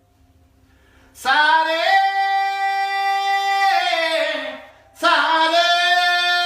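A solo voice singing two long, held phrases with little or no instrumental backing. It is quiet for about the first second, then a long sustained note begins; it fades, and a second held phrase starts about five seconds in.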